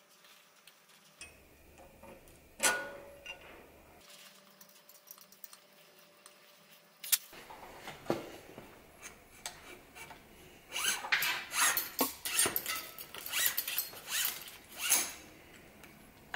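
Hands working on bicycle parts: a couple of sharp metal clicks, then a quick run of rubbing and scraping as a steel cable is fed into a drop-bar brake lever.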